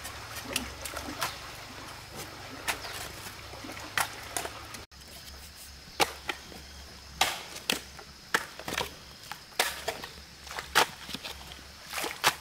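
A hoe blade chopping into stony earth: sharp, irregular strikes, faint at first and louder and more frequent from about five seconds in.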